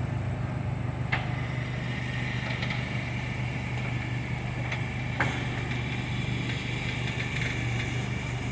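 Small engine of a remote-controlled storage-pod lift machine running steadily at idle, with two faint clicks, about one and five seconds in.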